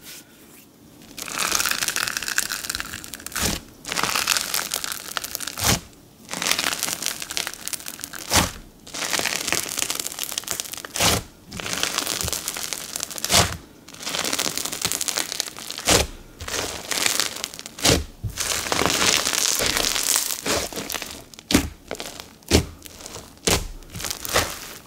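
Glittery bingsu slime being pressed and stretched by hand, giving a dense, crispy crackle in repeated pulses a second or two apart, with sharp pops now and then as the inflated slime is worked.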